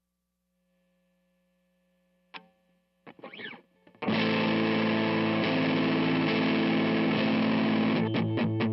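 Fender Stratocaster electric guitar played through a DOD Overdrive Preamp 250 pedal. After a faint hum, a single pluck and a few brief string noises, loud overdriven chords start about four seconds in and sustain, broken by a few short choppy stops near the end.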